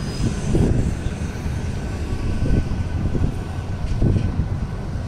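Wind buffeting the microphone in uneven gusts, a low rumble over outdoor city ambience.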